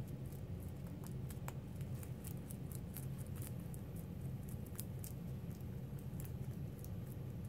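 Two rabbits chewing dried kudzu leaves: rapid, irregular crisp crunching, several crunches a second, over a steady low hum.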